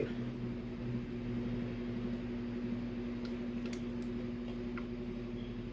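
Steady low electrical hum, with a few faint clicks partway through.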